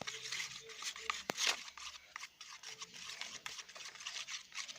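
A pencil stirring and scraping slime mixture in a plastic tub, a run of small scratchy clicks and rubbing, with one louder knock about a second in.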